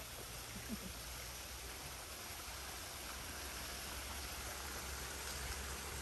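Water running along a narrow stone channel: a steady, even rushing hiss.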